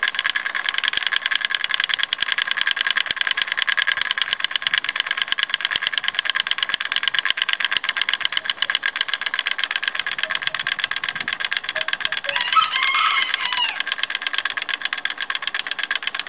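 Homemade brushed DC motor running on a 9-volt battery, its copper-wound wooden rotor spinning between two magnets. The brushes rattle rapidly and steadily against the commutator, starting abruptly as it is switched on.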